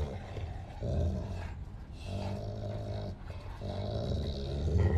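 Two Cane Corso dogs growling in a few low, drawn-out stretches while tugging on a rope toy: play growling during a tug-of-war game.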